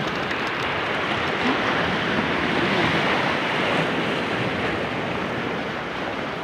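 Sea surf washing onto a rocky shore: a steady rushing wash that swells a little partway through.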